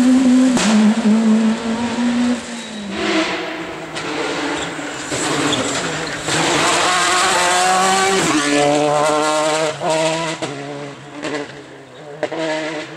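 Rally car engine at high revs, its pitch climbing and dropping sharply with gear changes as the car drives through. Sharp cracks stand out near the end as the engine sound fades away.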